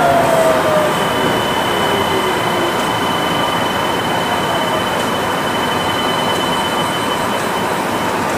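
A Kanazawa Seaside Line 2000 series rubber-tyred automated guideway train running, with a steady rumble and hiss from the tyres on the guideway. A falling motor whine fades out in the first second, and a thin, steady high whistle sounds from about a second in until near the end.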